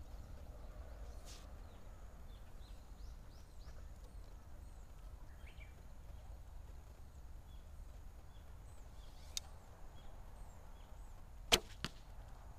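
A 45-pound Gaya-gung Firefox bow shot once near the end: the string released with one sharp snap, then a fainter knock a fraction of a second later.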